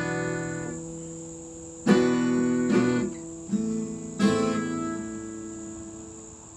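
Acoustic guitar strummed in single chords about a second apart, each left to ring and fade. A steady high-pitched tone runs underneath.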